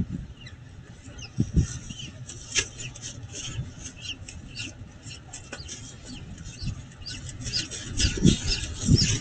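High, thin peeping of a newly hatched peregrine falcon chick, many short cheeps in quick succession, as the adult bends over it with prey. Scattered low thumps and knocks, heavier near the end, sound under the peeps.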